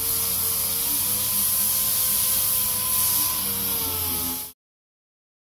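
Pneumatic orbital sander running against a van's body panel: a steady hiss of exhaust air over a whine that sags slightly in pitch near the end. It cuts off suddenly about four and a half seconds in.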